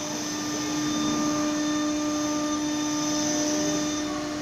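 Automatic tool-change CNC wood router running, its spindle giving a steady whine over a constant noisy hum as it machines a wood panel.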